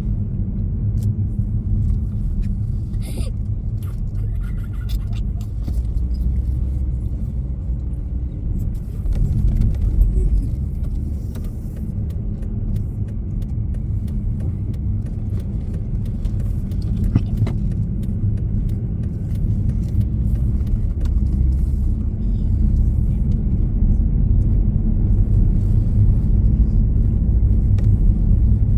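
Steady low rumble of a vehicle on the move, with a few faint clicks and rattles.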